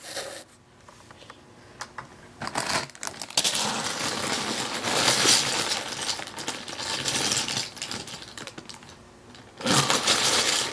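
Hands rummaging through a bag of loose plastic keyboard keycaps: a dense, continuous clatter of small plastic pieces, starting about three seconds in and louder near the end.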